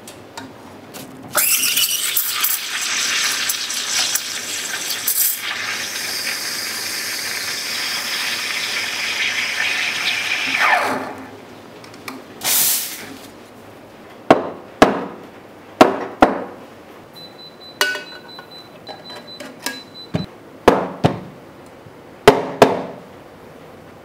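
The steam wand of a Casadio Undici espresso machine hisses steadily as it steams milk in a stainless steel pitcher for about nine seconds, then shuts off. A short hiss follows, then about ten sharp clinks and knocks.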